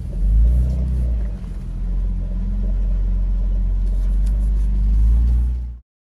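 Jeep engine rumbling low and steady while crawling over a rocky off-road track. It cuts off abruptly near the end.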